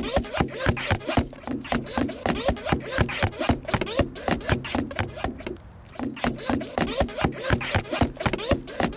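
Music with a steady, quick beat and a voice singing over it, dipping briefly about two thirds of the way through.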